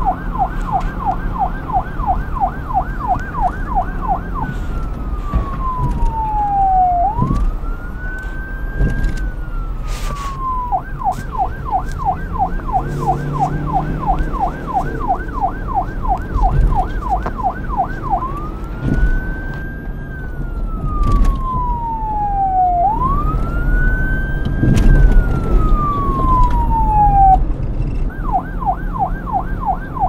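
Electronic police-car siren switching back and forth between a fast yelp, about five sweeps a second, and a slow wail that rises and falls over a few seconds at a time. A steady low rumble runs underneath.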